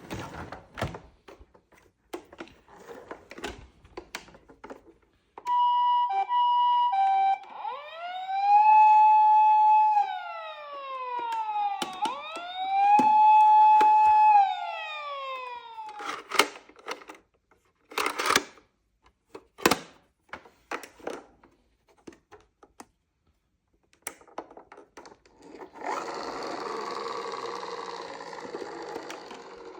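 A toy emergency vehicle's electronic siren: a few short beeps at two alternating pitches, then two wails that each rise, hold, and fall, between clicks of the toy being handled. Near the end a few seconds of rasping noise with no clear pitch.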